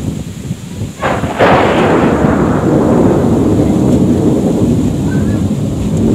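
Thunder: a sharp clap about a second in, followed by a long rolling rumble that slowly dies away.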